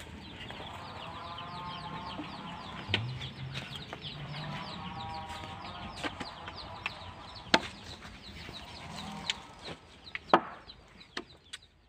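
Chickens clucking in a few drawn-out calls, with quick high chirping throughout and a few sharp knocks, the loudest near the end.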